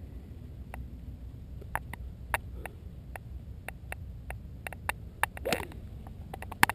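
Wind rumbling on the microphone with scattered small clicks. About five and a half seconds in, a golf club swings and strikes the ball off the fairway turf.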